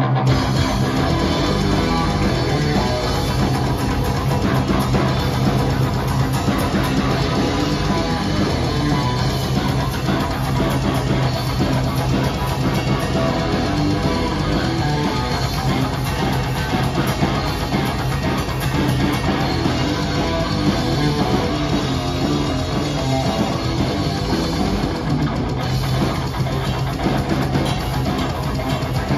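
Live rock band playing loud and continuously: electric guitar and bass guitar over a drum kit.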